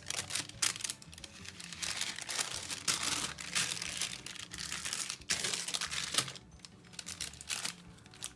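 Crinkling and rustling of a thin see-through plastic packet being handled, in irregular bursts as small pieces are slid out of it and back in.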